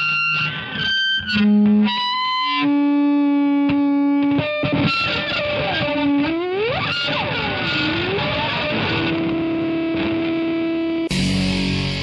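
Electric guitar played through distortion and effects into an amp. It opens with short stabbed notes, then long held notes with pitch swoops up and down, and about a second before the end it turns suddenly into a dense, noisy distorted wash.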